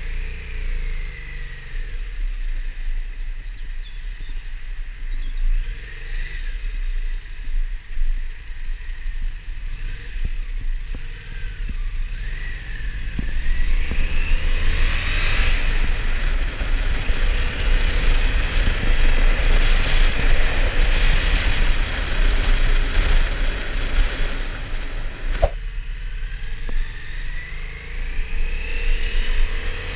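Yamaha MT-07 motorcycle's parallel-twin engine heard from the rider's seat. It revs up with rising pitch at the start and again near the end. Through the middle, as the bike gathers speed, a louder rush of wind and road noise joins it.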